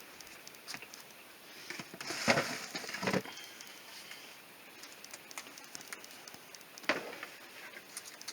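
Groceries being handled and packed into a small RV fridge: scattered light clicks and knocks, a louder rustle and clatter about two to three seconds in, and a sharp click near the end.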